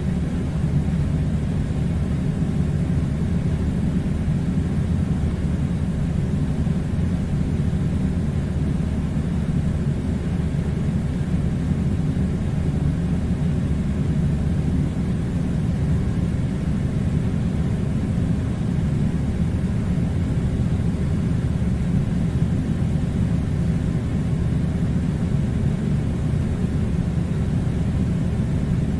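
Air conditioner running: a steady, even low rumble and hiss with no change throughout.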